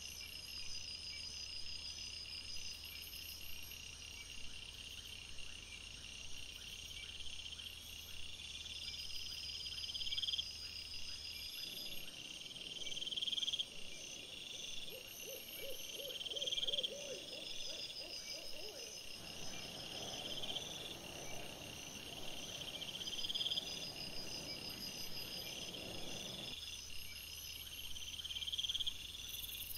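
Crickets chirping in a steady night chorus, with regular repeating chirps. In the middle a fainter low trill and rustling join in.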